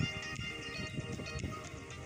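Background music with steady sustained notes.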